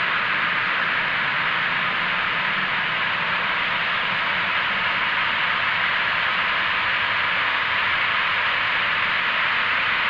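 Steady hiss of TV static, the noise of a lost cable signal.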